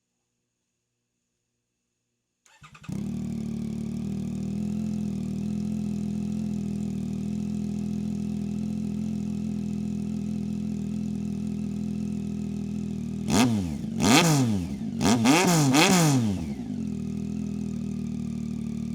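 2024 Yamaha MT-09's inline three-cylinder engine starting about two and a half seconds in and settling into a steady idle. Several quick throttle blips rise and fall in pitch, then it drops back to idle.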